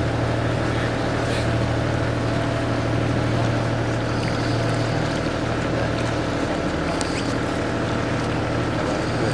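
Canal tour boat's engine running steadily at cruising speed, a constant low hum.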